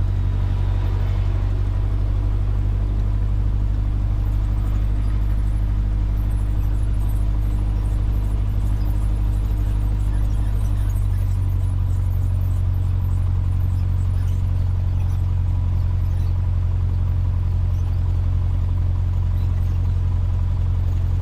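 Cessna 150's Continental O-200 four-cylinder engine running steadily at low taxi power, with a deep, even propeller drone. Its note shifts slightly about eleven seconds in.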